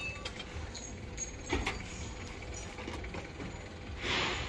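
Light clatter of scrap metal and wiring being handled in the back of a van, with one light knock about a second and a half in, over a low steady engine-like rumble. A hiss swells near the end.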